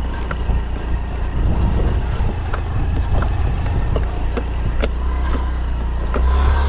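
Motor scooter engine running at low speed on a rough dirt track, a steady low rumble with frequent short knocks and rattles from the bumps.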